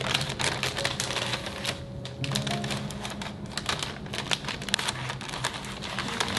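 Rapid, irregular clicking and tapping, many small hard strokes a second, over soft background music.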